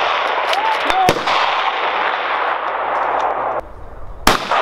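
Precision rifle shots fired from the prone position: the loud rush that follows a shot just before the start runs on for about three and a half seconds, then a second sharp shot comes about four seconds in, followed by the same loud rush.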